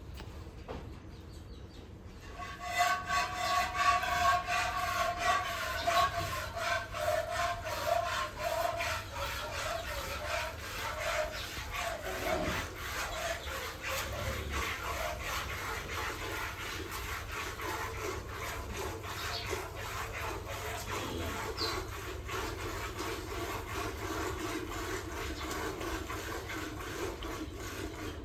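A cow being milked by hand: rapid rhythmic squirts of milk hitting a metal pail, starting about two seconds in. The pail rings at first, and the ringing fades and deepens as the milk builds up.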